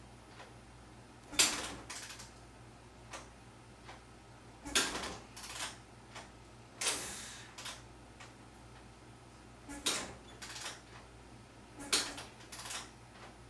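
Repeated short mechanical rasps, mostly in pairs about half a second apart, as a 1988 Honda 300 4Trax ATV's engine is tried again and again without firing. The battery is dead.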